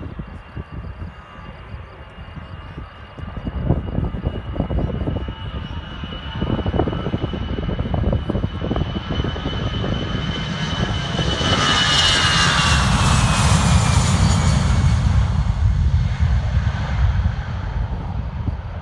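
Jet airliner passing close by: a high engine whine and rumble build up, peak about twelve seconds in, then the whine falls in pitch as the aircraft moves away, leaving a low rumble.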